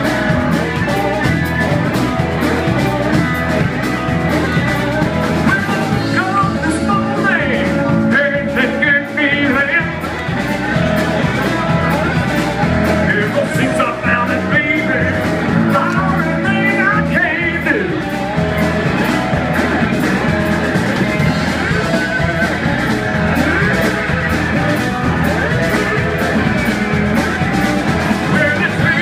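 Electric blues band playing live: electric guitars, bass, drums and keyboards, with a steady rhythm throughout.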